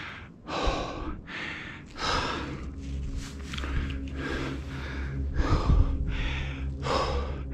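A hiker breathing hard and fast from the exertion of a steep climb, a quick run of gasping breaths close to the microphone, with a steady low rumble underneath from about two seconds in.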